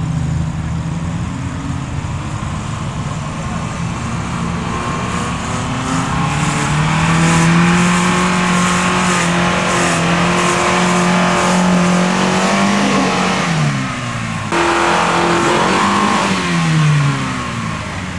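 Suzuki Sidekick's four-cylinder engine revving hard under load as it climbs a steep dirt hill, the pitch rising and holding high, then dropping, with another rise and fall of revs near the end.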